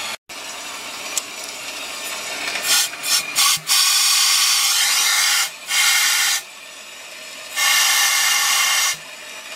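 Several loud rushes of hissing noise, each a second or so long and cutting off abruptly, over a fainter steady hiss.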